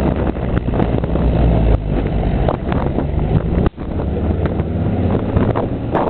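Wind buffeting the camcorder microphone: a continuous low rumble and gusty rustle, cutting out briefly a little past halfway.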